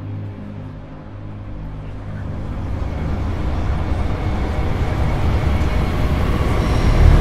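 Sci-fi spaceship sound effect: a steady low hum that turns, about two seconds in, into a deep rumble that builds steadily louder.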